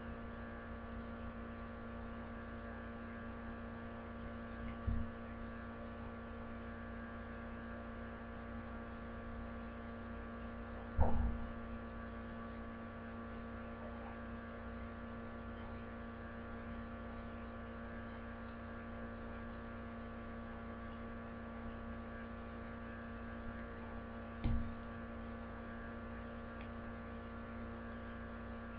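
Steady electrical mains hum, with three short low thumps, the loudest about eleven seconds in.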